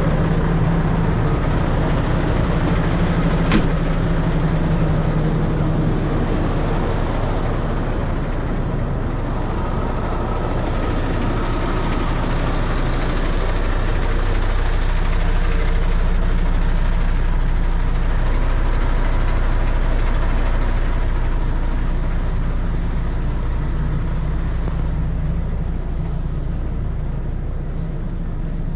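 Steady low drone of an idling lorry's diesel engine, with one sharp knock about three and a half seconds in.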